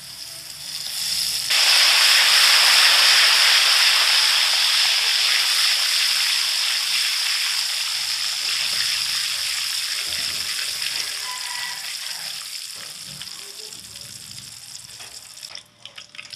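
Hot cooking oil with garlic and onion sizzling hard as food colouring is added. The sizzle surges about a second and a half in, then slowly dies down.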